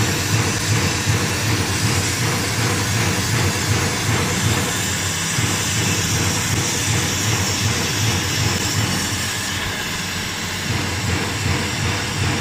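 Brazing torch flame running with a steady hiss and rumble while a copper refrigerant line is brazed onto a hermetic compressor.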